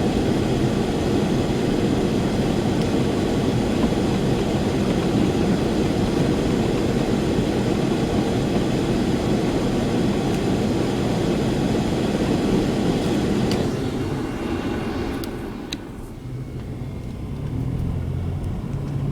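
Car accelerating along a snow-covered road: a dense, steady rush of engine, tyre and road noise, without wheelspin. About fourteen seconds in it drops away to a quieter, lower engine hum.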